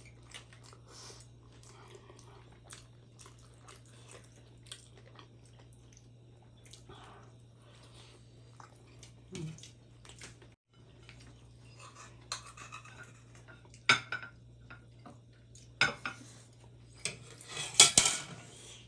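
Close-miked mukbang eating of momos: soft chewing and small mouth clicks, then several sharp clicks and clatters in the last few seconds, like cutlery on a plate.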